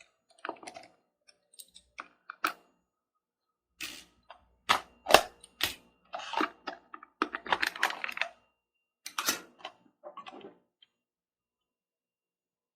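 Irregular clicks, taps and short rustles of small objects being handled, stopping about 11 seconds in.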